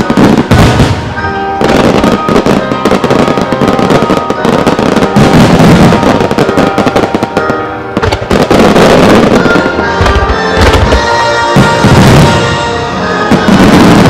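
Starmine fireworks barrage: shells launching and bursting in rapid, dense volleys, with music playing along to the show.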